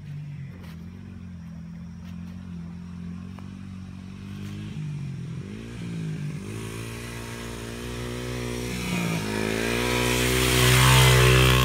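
Small off-road engine running low and steady, then revving in rising pulls and growing louder, loudest near the end.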